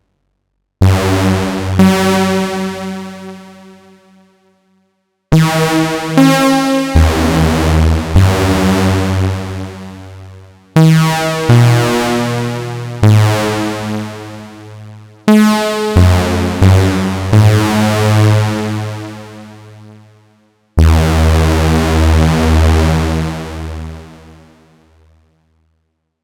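Vectra software synthesizer playing a unison-stacked patch: five short phrases of chords over bass notes. Each phrase starts sharply and fades away over about four seconds, with brief silences between.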